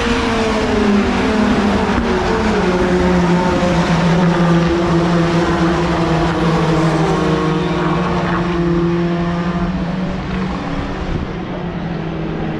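A pack of racing pickup trucks' engines running hard as they pass one after another. Several engine notes overlap, each dropping in pitch as a truck goes by.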